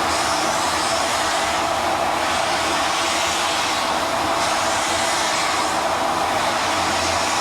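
Steady rushing hiss inside the cab of Milwaukee Road 261, a 4-8-4 Northern-type steam locomotive, from the working engine's fire and steam.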